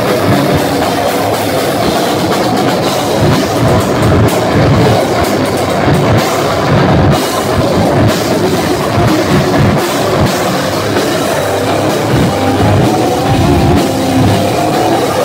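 A heavy metal band playing loudly live, with fast, pounding drums and cymbals under a dense wall of guitar.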